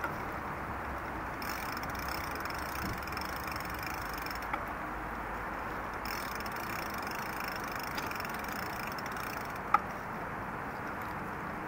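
A bicycle rolling over asphalt: steady tyre and drivetrain noise, with a sharp click about ten seconds in.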